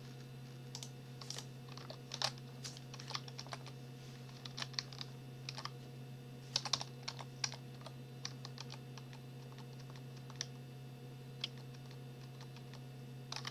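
Computer keyboard typing: irregular keystrokes, some in quick runs and some single, with a few louder key presses. A steady low hum runs underneath.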